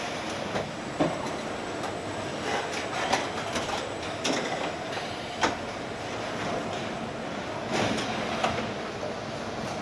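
Car-factory machinery running steadily, with irregular sharp metallic clanks and knocks, the loudest about a second in and about five and a half seconds in.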